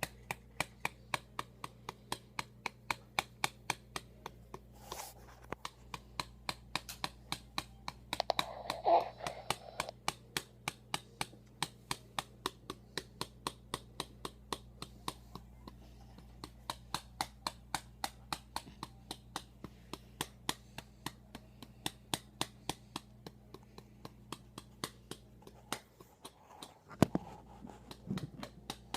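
Sharp, evenly spaced taps, about three a second, over a steady low hum that stops near the end. A brief louder noise comes about nine seconds in.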